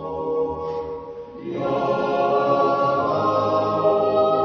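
Men's yodel choir singing a Swiss yodel song in held chords. After a short break about a second in, the choir takes up a new chord, and a low bass note comes in about three seconds in.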